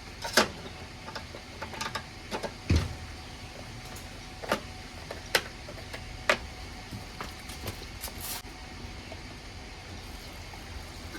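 Scattered clicks and knocks of caps and containers being handled on a lawnmower while it is topped up with oil and fuel, including one dull thump about three seconds in and a short rustle near the end.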